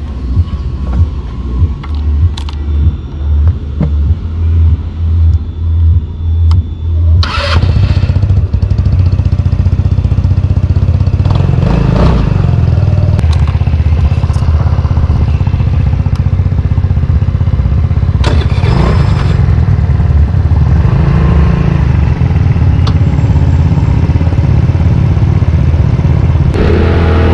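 Pocket motorcycle running under way, with heavy wind rumble on the microphone. For the first seven seconds or so the sound swells and fades about every three-quarters of a second, then it holds steady and loud.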